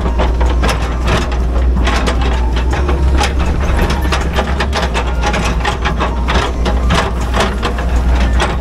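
Excavator diesel engine running steadily, heard from inside the operator's cab, with frequent sharp clicks and rattles as the bucket works loose soil and rock.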